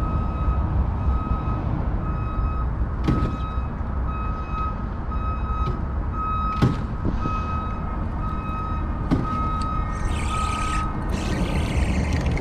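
Vehicle reversing alarm beeping steadily, a single high tone repeated over and over, over a low rumble. The beeping stops near the end as a short hiss starts. A few sharp knocks fall in between.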